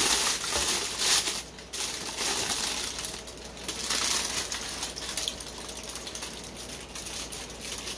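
Aluminium foil being ripped and crinkled open by hand, a loud crackling rustle in several pulls that grows quieter after about five seconds.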